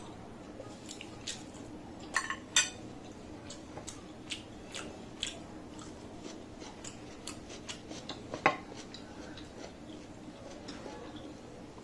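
Close-miked eating sounds: chewing and small wet mouth clicks, with sharper clacks about two seconds in, again half a second later, and loudest about eight and a half seconds in.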